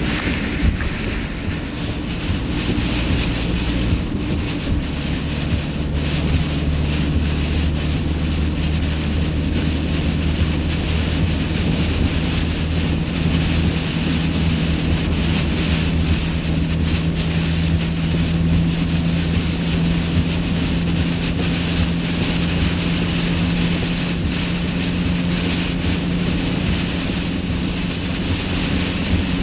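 A vehicle driving on a motorway in heavy rain and strong wind: a steady low drone, with a constant hiss of rain, tyre spray and wind over it.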